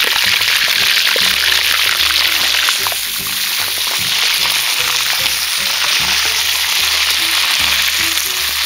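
Pork rib bones frying in vegetable oil heated to smoking in a cast-iron kazan: a loud, steady sizzle.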